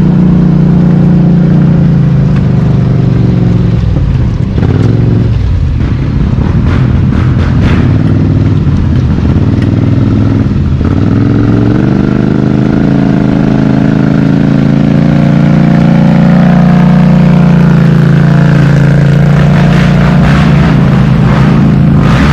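ATV engine revving hard. Its pitch drops twice in the first half, then climbs about halfway in and is held high.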